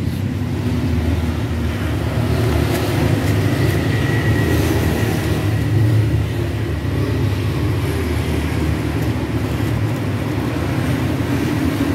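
A steady low engine-like drone that runs on unchanged, with a few faint light clicks over it.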